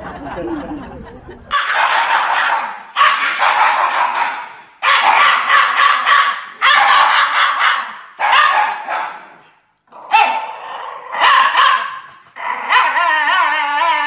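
A Shiba Inu dog giving a string of about eight loud, drawn-out howling barks, each about a second long, with the head raised. The last call wavers up and down in pitch.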